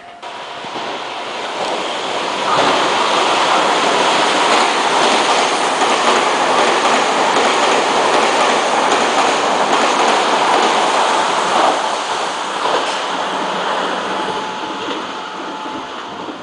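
Meitetsu 3000-series electric commuter train passing through the station at speed without stopping. The rush of wheels and running gear builds over a couple of seconds, holds steady for about ten seconds, then slowly fades as the train clears the platform.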